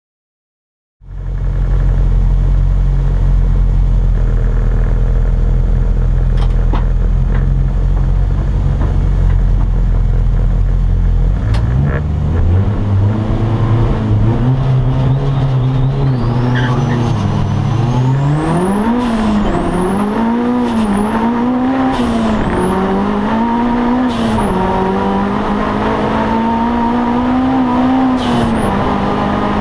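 Audi TT race car's engine heard from inside the cockpit. It holds an even note at first, then from about eleven seconds in it accelerates hard through several gears, the pitch climbing and dropping back at each upshift. A high whine rises and falls along with the revs.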